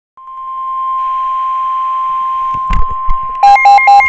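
NOAA Weather Radio warning alarm: a single steady 1050 Hz tone that starts a moment in and holds, signalling that a warning is about to be broadcast. A short thump comes partway through. Near the end, a louder electronic alarm beeping joins over the tone, pulsing several times a second on two alternating pitches.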